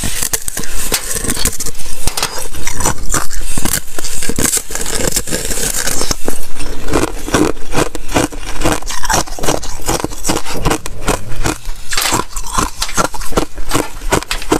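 Thin sheet ice being bitten and chewed close to the microphone: a dense run of crisp crackling and crunching, with many sharp snaps in quick succession.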